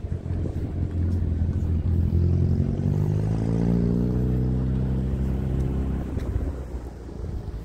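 A car engine running, its pitch rising over a second or so, then holding steady and fading away about six seconds in.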